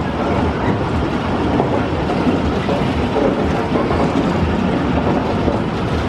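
Octopus (Spider) amusement ride running at speed, its spinning arms and tub cars giving a loud, steady mechanical rumble.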